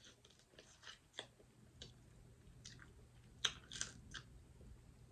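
Faint close-up eating sounds: chewing seafood, with scattered sharp clicks and crackles, the loudest about three and a half seconds in.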